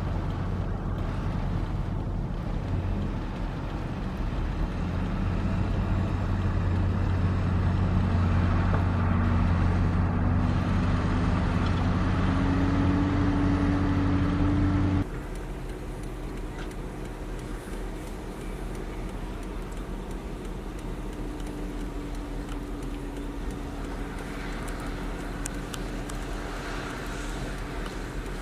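Heavy construction machine's diesel engine running, its pitch slowly climbing for several seconds as the engine speeds up. About halfway through, the sound drops suddenly to a quieter, steady engine drone.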